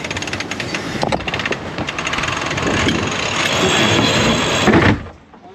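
Sailing yacht tacking in strong wind: the sails flapping and the sheet winch ratcheting as the sheet is hauled in, with loud wind rush over the microphone. The noise cuts off abruptly near the end.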